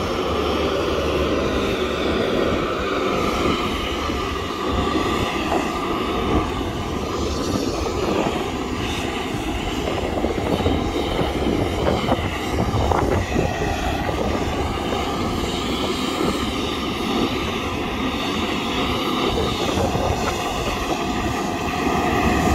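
Turboprop airliner engines running on an airport apron: a steady whine over a low rumble.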